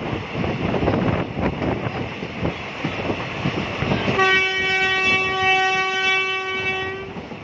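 Passenger train running along the track, heard from an open carriage window. A little past halfway the train's horn sounds one steady, single-pitched blast for about three seconds.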